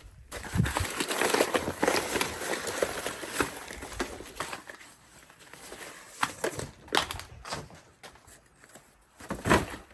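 Cardboard and paper being handled and shuffled, a dense rustling that thins out after a few seconds, followed by a few scattered knocks and thuds.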